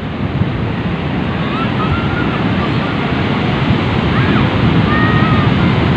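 Ocean surf washing in as a steady rush of noise, with wind buffeting the microphone, growing slightly louder. A few faint, thin, high-pitched calls sound over it in the middle.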